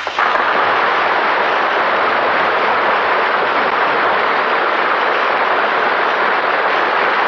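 Studio audience applauding, starting suddenly at full strength and holding steady.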